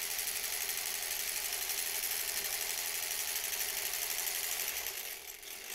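Electric sewing machine stitching steadily at a fast, even rate, then stopping near the end. The machine was freshly oiled and cleaned.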